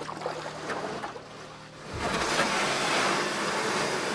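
The tail of music dies away, then a steady rushing noise comes in suddenly about two seconds in and stays loud.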